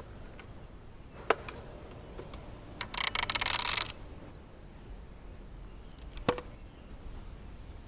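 Music box being handled and wound: a single click, then about a second of rapid ratcheting clicks, then another click a few seconds later. No tune plays: the music box has stopped working.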